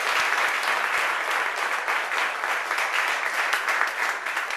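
Audience and people on stage applauding together, a dense clatter of many hands clapping that eases off slightly toward the end.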